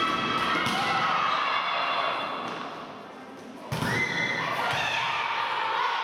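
Shouting voices echoing in a sports hall, with a volleyball thudding. The sound fades down a little before halfway, then cuts back in suddenly with a thud and more shouts.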